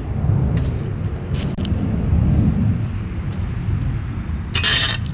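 A steady low rumble, with a couple of short scraping noises about a second and a half in and again near the end.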